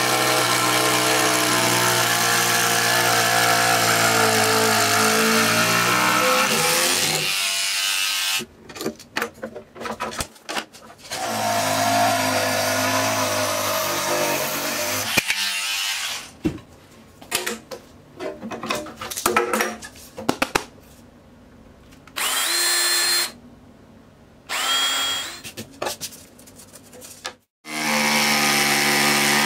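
Small DC 775 motor of a homemade mini table saw spinning a 60 mm circular blade through a timing belt. It runs steadily, is switched off and winds down about seven seconds in, and runs again for a few seconds. Then come scattered quieter knocks and two short spurts, and it starts up again near the end.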